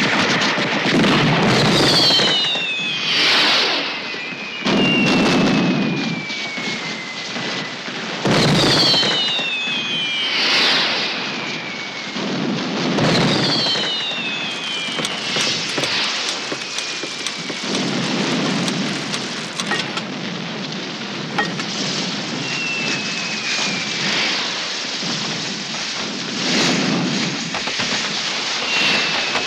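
Fireworks going off in a barrage: several whistles that fall in pitch, sudden bangs, and continuous crackling.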